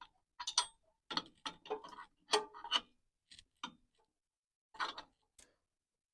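Irregular sharp metal clicks and clinks of washers and nuts being fitted by hand onto a U-bolt, a quick run of about ten that thins out after about three seconds.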